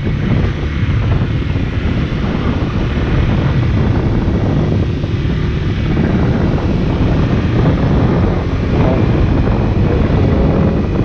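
Wind rushing over the microphone of a moving Honda CB150X motorcycle, with the motorcycle's running engine under it; the noise is loud and steady throughout.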